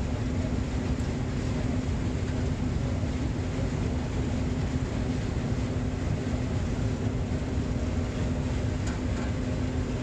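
Combine running while harvesting corn, heard from inside the cab: a steady engine and machinery drone with a constant low hum, unchanging throughout.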